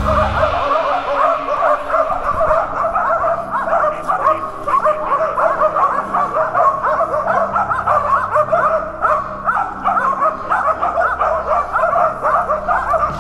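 Several hunting laikas barking fast and without pause, their barks overlapping, as they bay a bear.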